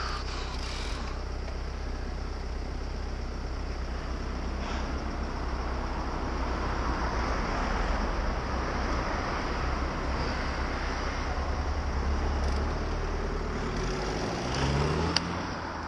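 Road traffic at a junction: a steady low engine hum from a car idling close by, with the noise of passing traffic swelling and fading. Near the end an engine's pitch rises as traffic moves off, and there is a single sharp click.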